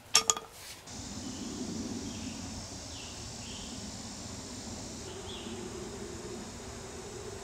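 Two sharp clicks right at the start, then a steady high drone of insects with a low hum underneath and a few faint short chirps.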